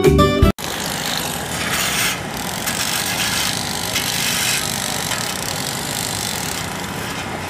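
A plucked-guitar intro jingle cuts off suddenly about half a second in, giving way to a steady outdoor din of engine hum and hiss.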